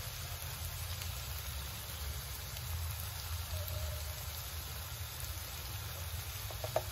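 Spiced potato filling (potato pieces, onion and spices) sizzling steadily in a pan, over a low steady hum.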